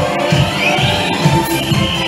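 Loud upbeat music with a steady driving beat, about two and a half beats a second.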